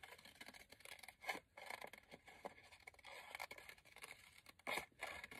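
Scissors cutting through paper: a few faint snips, the clearest about a second in and another near the end.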